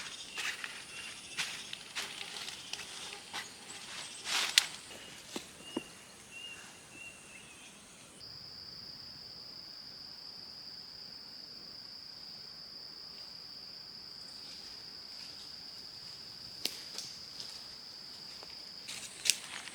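Insects buzzing, with scattered clicks and rustles of handling in the first half, then a single steady, high-pitched insect drone that starts abruptly, runs about eleven seconds, and stops abruptly.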